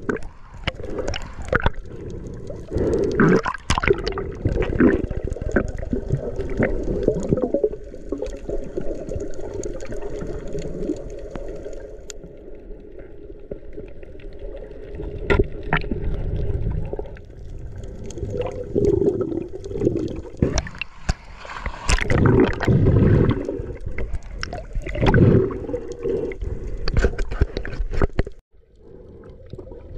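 Water gurgling and sloshing against the camera, muffled, swelling and fading in surges over a steady low rumble.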